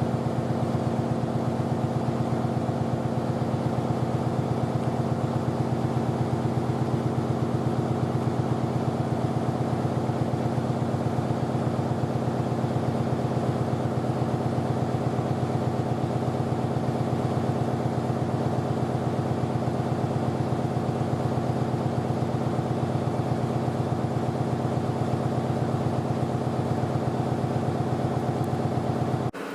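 A motor running steadily for about half a minute, a constant pitched hum with a fine rapid pulse, cutting off abruptly near the end.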